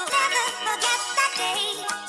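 Background music with a steady beat and a wavering melody line, like singing.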